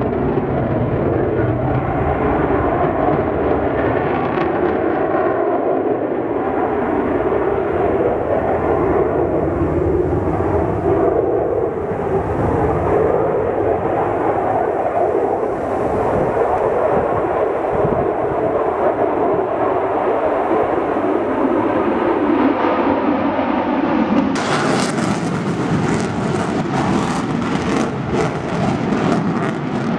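A fighter jet's engines roaring steadily as it flies its display. Near the end the roar turns harsher and crackles as the jet passes low and close.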